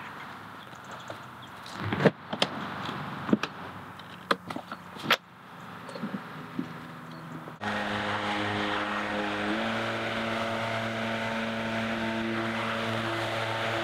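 Wooden boards knocking and clattering as they are handled, with a few sharp knocks. About halfway through it cuts to a gas backpack leaf blower's engine running steadily.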